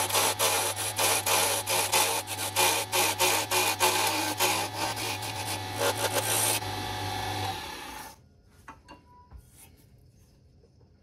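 Wood lathe running with a hand-held turning tool cutting a spinning maple and epoxy resin pen blank: a loud, rough scraping over a steady motor hum. The cutting stops about six and a half seconds in, the motor hum fades out about a second later, and only a few faint clicks follow.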